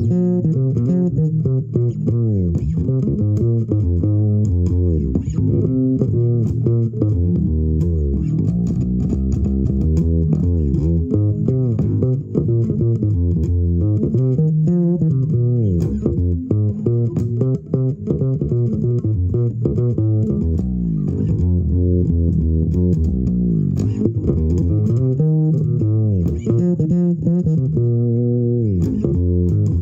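Solo fretless electric bass improvisation, notes sliding up and down in pitch.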